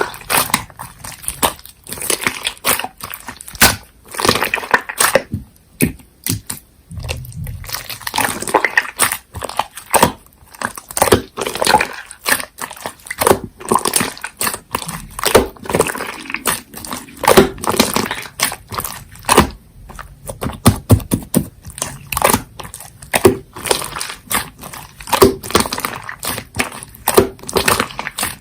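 Hands squishing, stretching and poking slime, making a dense run of irregular clicks and pops.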